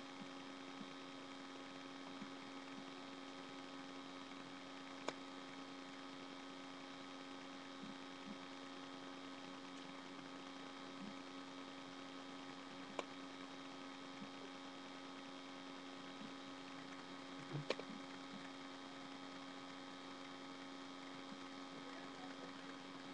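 Steady electrical mains hum of several tones, with a few faint sharp clicks about five, thirteen and eighteen seconds in.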